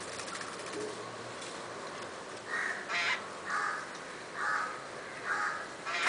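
Jungle babblers giving a run of short, harsh, rasping calls, about one a second, starting a little before halfway.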